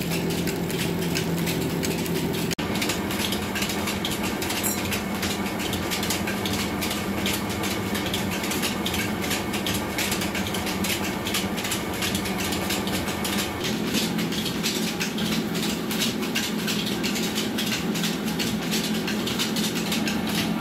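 Small belt-driven rice hulling machine running steadily: a constant low hum with a dense, fast rattle as the grain passes through the mill.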